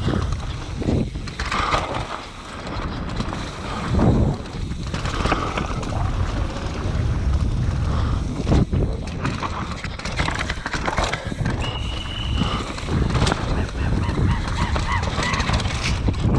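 Downhill mountain bike descending fast over a dirt trail, heard from the rider's helmet camera: tyres rumbling over dirt and leaves, with the bike rattling and knocking over bumps. A short high squeal comes about three quarters of the way through.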